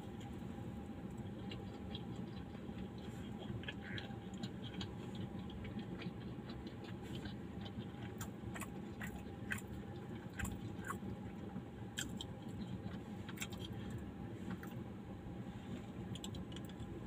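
A person chewing a battered, deep-fried bajji fritter, with small scattered crackles and clicks from the mouth, over a steady low hum inside a car.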